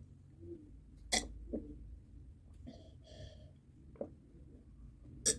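Close-miked mouth sounds of someone eating: a few sharp lip smacks and clicks, about a second in, at four seconds and near the end, with a short breathy sound around three seconds.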